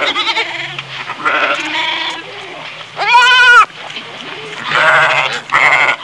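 Goats bleating repeatedly, about five calls in turn, the loudest a clear, quavering bleat about three seconds in.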